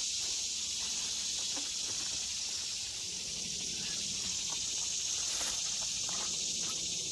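Steady, high-pitched chorus of insects in summer woods, with a few faint knocks and rustles of junk being handled and dropped into a plastic bag.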